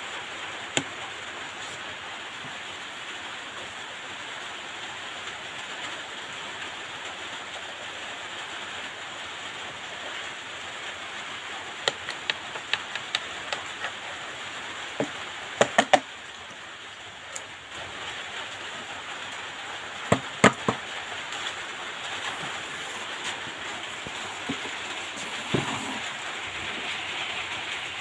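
Sharp clicks of a home theatre unit's front-panel push buttons being pressed, a few at a time in quick groups, over a steady hiss.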